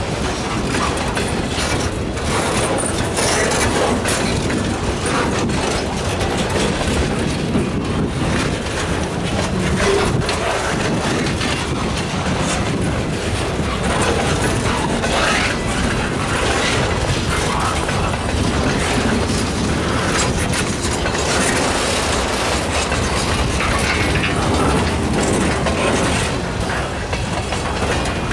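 Freight train of autorack and boxcar cars rolling past: a steady, loud rolling noise with the wheels clicking over rail joints.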